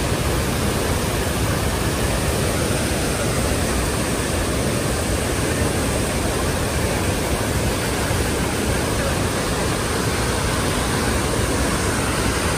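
Tall waterfall plunging into a rock canyon, a steady, loud rush of falling water heard up close.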